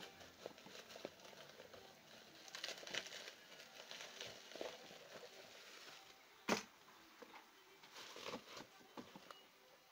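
Hands rummaging in a cardboard shipping box, crinkling plastic bubble wrap and scraping against the cardboard, with scattered small clicks and one sharp knock about two-thirds of the way through.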